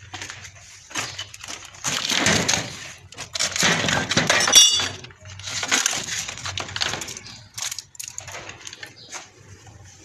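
Hard plastic fan parts clattering and scraping as they are rummaged through and picked up by hand, in irregular bursts, with a brief ringing clink about four and a half seconds in.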